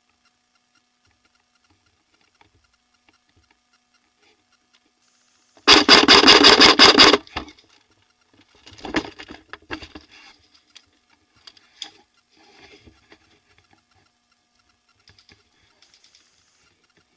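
Airsoft electric gun firing one full-auto burst of about a second and a half, a fast rattle of about ten shots a second, about six seconds in. Fainter rustling and a few clicks follow.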